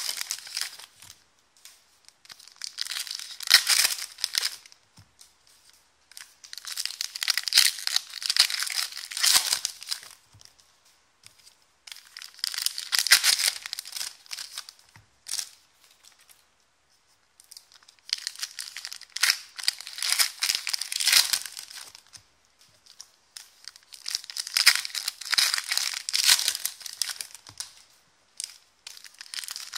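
Foil wrappers of basketball trading-card packs being torn open and crinkled by hand, in about five bouts of two to four seconds with short pauses between.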